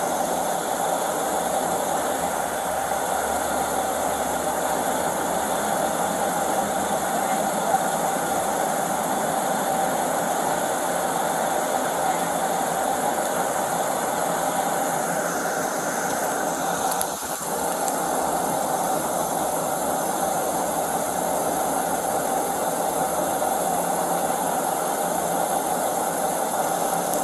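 Steady hum of an idling car engine, unchanging apart from a brief dip about two-thirds of the way through.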